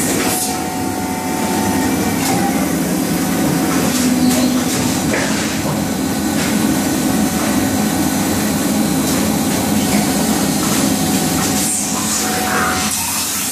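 Steady, loud hum of industrial machinery from a robot-loaded metal-spinning cell, with a few short hisses through it.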